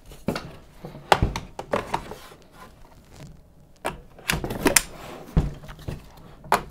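Front wheels being pushed and clicked into the frame of an UPPAbaby Vista V2 stroller: an irregular series of sharp plastic and metal clicks and knocks, a few with a dull thud.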